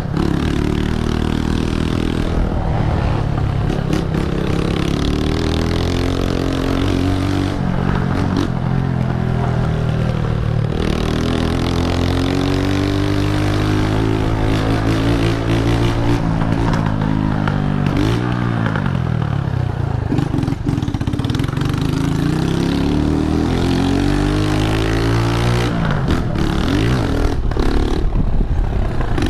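Honda CG125's single-cylinder four-stroke engine running through a very loud exhaust while riding, its pitch rising under acceleration and dropping off between gears several times, with a deep fall and climb again about two-thirds of the way through.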